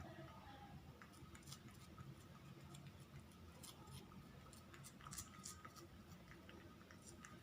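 Faint, irregular wet clicks of a cat licking and chewing a squeezed-out treat.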